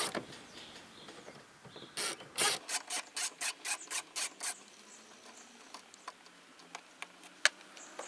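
Hand ratchet with a 10 mm socket clicking as a bolt behind the inside door-handle cover is backed out: a quick even run of about five clicks a second, starting about two seconds in and lasting a couple of seconds, followed by a few single clicks.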